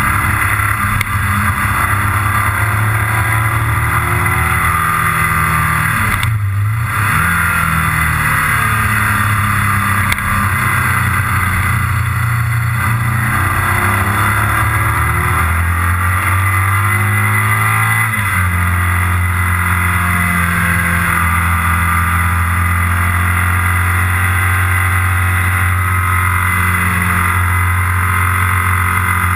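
Motorcycle engine running under load, heard from the riding bike, its note rising and falling with the throttle through the bends, with steady wind rush. The sound breaks briefly about six seconds in, and the engine note steps to a new pitch around eighteen seconds in.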